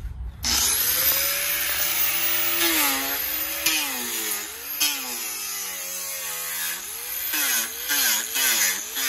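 Corded angle grinder with a sanding disc starting up about half a second in, then grinding along the edge of a wooden slab to take off the sapwood. Its motor whine sags and recovers again and again as the disc is pressed into the wood, more often near the end.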